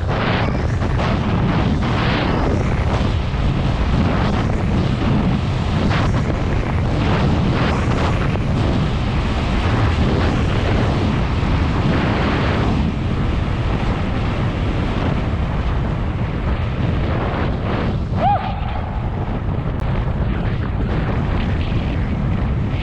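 Loud, steady wind buffeting a GoPro Hero7's microphone during a fast ski descent, with skis sliding and scraping over spring corn snow.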